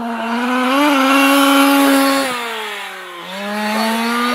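Losi 5IVE-T 1:5 scale RC truck's two-stroke petrol engine revving as the truck drives. The pitch climbs and holds high, drops off about three seconds in as the throttle eases, then picks up again.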